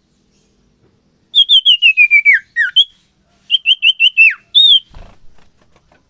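Common iora (cipoh) singing: two quick runs of clear, repeated whistled notes, each run ending in a note that drops steeply in pitch. A soft low thump follows near the end.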